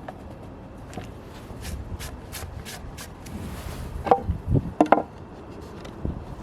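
Wooden boards being handled and set in place: scattered light taps and knocks, with a few louder, briefly ringing knocks about four to five seconds in.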